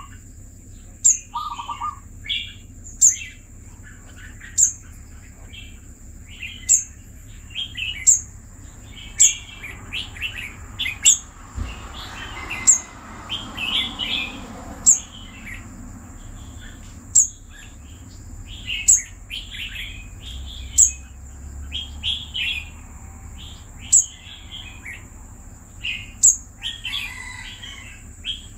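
Caged red-whiskered bulbul calling in short chirpy phrases, among sharp, high, clicking chips that come every one to two seconds and are the loudest sounds.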